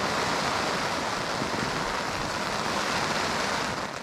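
Heavy rain falling steadily, a dense even hiss coming down harder and harder.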